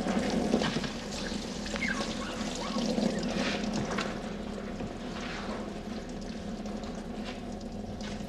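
Water running from a tap into a sink while hands are washed under it. The flow is louder in the first few seconds and eases off after about four seconds.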